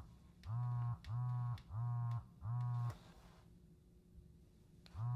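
Remote-triggered buzzer sounding in short buzzes of about half a second each, counting out a chess square in code: a run of buzzes ends about three seconds in, and after a pause of about two seconds the next run begins near the end, five then four for E4.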